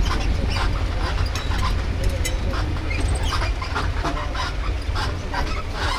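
Birds giving short, irregular calls over a steady low rumble.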